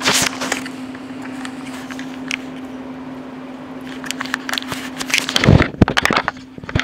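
Plastic bag liner crinkling and rustling around a load of king crab legs, with scattered clicks and a louder burst of rustling and handling bumps about five and a half seconds in. A steady low hum sits underneath.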